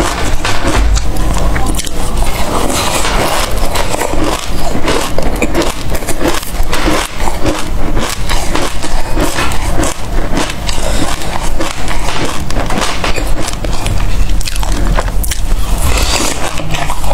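Close-up chewing of a mouthful of small black seeds: a dense, irregular run of wet crackles and clicks.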